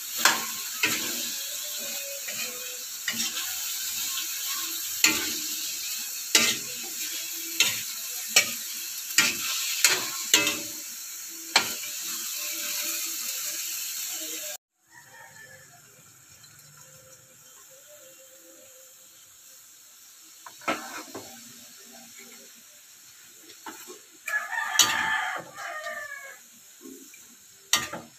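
Food sizzling in a steel wok while a metal spatula stirs it, knocking and scraping against the pan several times a few seconds apart. About halfway through the sound cuts off abruptly; after that the sizzle is much fainter, with only occasional spatula knocks and a short, louder call-like sound near the end.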